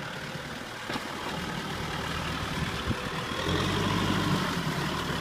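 Kubota M6040SU tractor's four-cylinder diesel engine running under load while the tractor is bogged in deep paddy mud. It gets louder about three and a half seconds in as it is revved.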